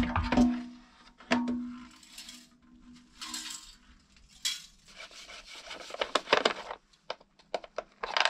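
Hand-dismantling a small portable generator: knocks as the fuel tank is lifted off the frame, then stretches of scraping and rubbing with light metal clinks from parts and a screwdriver.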